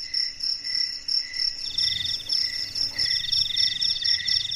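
Night insects, crickets, chirping in several overlapping pulsing rhythms of about four or five chirps a second. A faster, higher trill joins about two seconds in.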